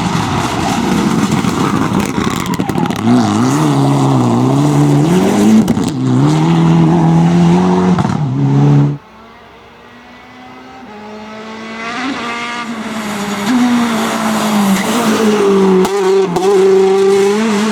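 Rally car engine revving hard and rising and falling in pitch through gear changes. About nine seconds in the sound cuts off suddenly, and a second rally car is heard approaching, its engine growing steadily louder.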